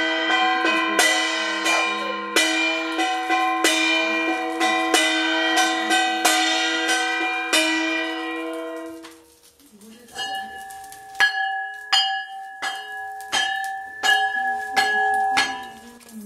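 Brass puja hand bell rung rapidly and continuously during the lamp-waving aarti. Its ringing dies away about nine and a half seconds in. After a short pause a bell is struck again more slowly, about twice a second, with a clearer ring.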